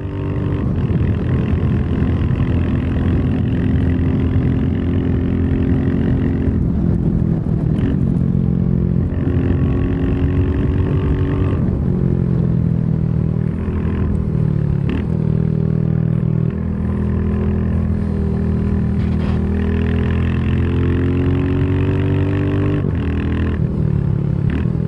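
Royal Enfield Classic 350's single-cylinder engine pulling a riding motorcycle along the road. The revs climb and drop back several times, roughly every five seconds.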